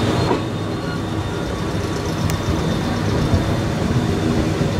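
JR West 105 series DC electric train pulling away from the platform, its motors and wheels on the rails making a steady low rumble as it moves off.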